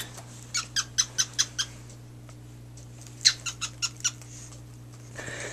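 Small pet bird chirping: two quick runs of short, high chirps, about six in each, the first about half a second in and the second about three seconds in.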